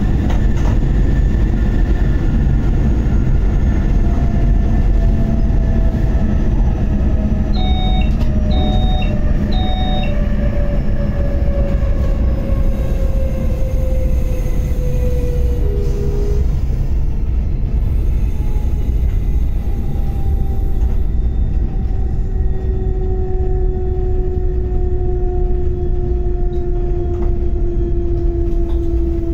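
An SBB RBDe 560 'Domino' electric multiple unit heard from its driver's cab while running: a steady low rumble of wheels and running gear, with the electric drive's whine falling slowly in pitch as the train slows. Three short electronic beeps sound in the cab about eight seconds in.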